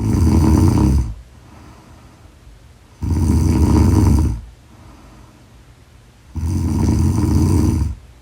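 A woman snoring loudly in her sleep: three long snores, each lasting a second or more and coming about every three seconds, with quieter pauses between.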